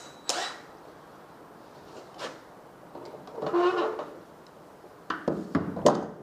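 Hand tools being handled on a workbench: scattered sharp clicks and knocks, a brief whirr about three and a half seconds in, then a cluster of louder knocks near the end.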